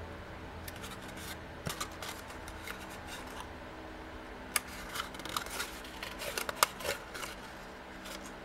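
Cardstock crackling and clicking as fingers fold and pinch a box's tabs into creases, in short scattered bursts that gather in the second half, over a faint steady hum.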